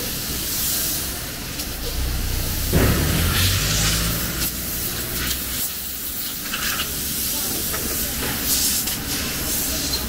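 Power cable extrusion line running: a steady low machine hum under a bright hiss, with a louder low swell about three seconds in.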